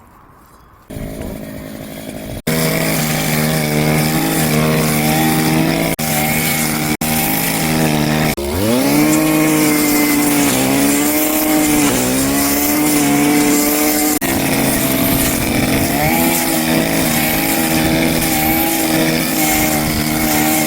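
Brush cutter engine running at high speed, fitted with a two-tooth blade. After about eight seconds its pitch sags and recovers several times as the blade takes load cutting grass. A few abrupt breaks cut into the steady running.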